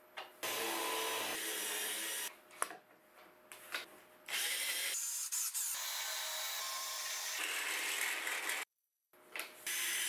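Cordless drill running in several bursts as it bores holes in the wood, with short pauses between them.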